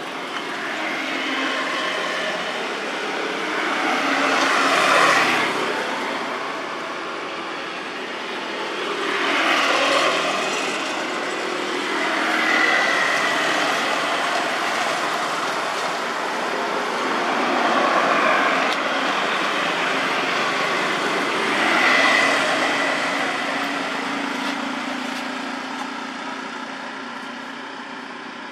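Road vehicles passing one after another, their noise swelling and fading about five times, with a faint steady whine at two of the passes.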